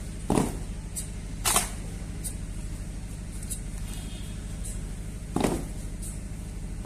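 Cadets' boots stamping in unison during foot drill: two sharp stamps about a second apart near the start, and a third about five seconds in, over a steady low hum.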